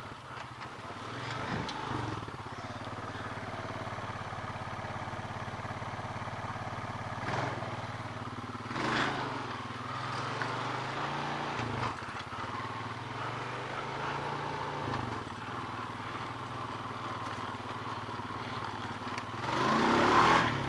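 Honda ATV engine running under a rider, its note rising and falling with the throttle, with a louder stretch near the end.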